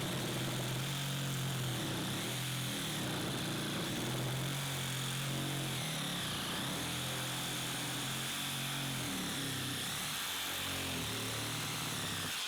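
DeWALT Atomic 20V MAX DCS369 cordless reciprocating saw running steadily, with a steady high whine.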